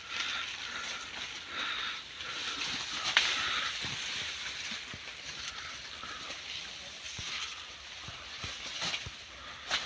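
Rustling of a large cloth sheet and dry sugarcane leaves as the sheet is handled and stretched, with a few sharp snaps.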